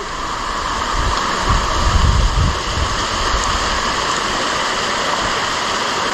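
Steady rush of a monsoon stream and waterfall, with a low rumble on the microphone about two seconds in.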